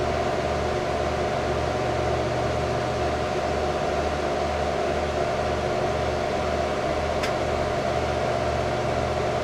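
Desktop PC running with its case open: the cooling fans whir steadily, with a low hum that pulses about twice a second under a steady mid-pitched drone. A faint tick comes about seven seconds in.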